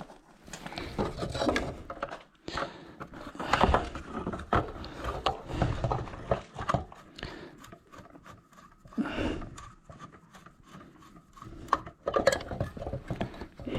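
Parts of a light fixture's mounting bracket and wiring being handled: irregular clicks, taps and rubbing.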